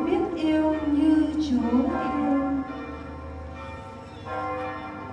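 Church bells ringing, mixed with music. The music is loudest for the first two and a half seconds or so, then drops to a quieter, steady level.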